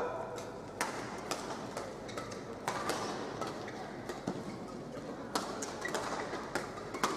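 Badminton rackets striking a shuttlecock back and forth in a doubles rally: a series of sharp hits, roughly one every half second to a second, over the murmur of a sports-hall crowd.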